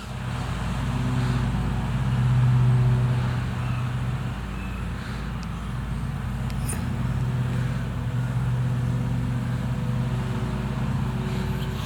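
A domestic cat purring close to the microphone: a steady low rumble that swells a little about two seconds in.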